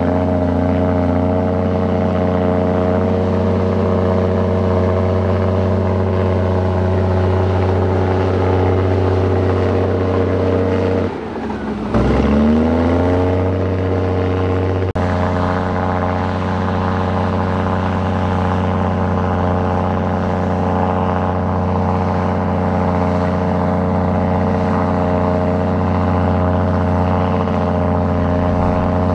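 Heavy construction machine's diesel engine running steadily at a constant pitch. About eleven seconds in it dips briefly and its pitch falls and then climbs again, and it changes suddenly about fifteen seconds in.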